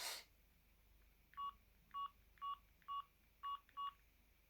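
Keypad key-press beeps from a Samsung SGH-series mobile phone, six short identical beeps about two a second as its menu buttons are pressed, after a brief rush of noise at the start.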